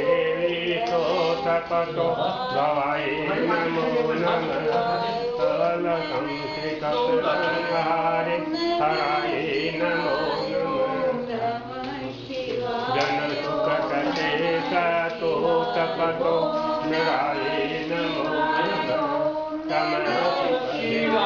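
Several voices chanting a Hindu devotional mantra together in a steady, continuous chant.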